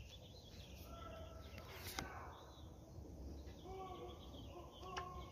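Quiet outdoor background noise: a steady low rumble, a few faint short high tones, and two sharp light clicks, one about two seconds in and one near the end.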